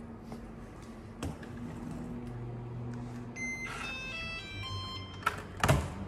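A short run of electronic beeps stepping through different pitches over a low steady hum, followed by two loud knocks near the end.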